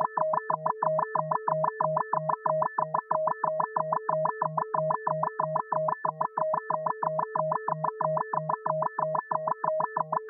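Electronic FM beep: a synthetic tone warbling evenly between a low and a high pitch, about three to four switches a second.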